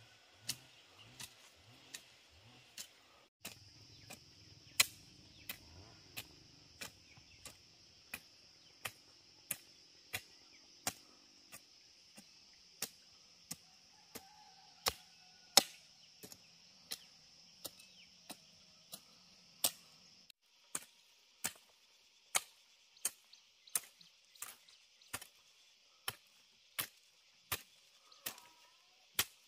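Steady, regular chopping by hand, one sharp stroke about every two-thirds of a second, over a constant high buzz of insects.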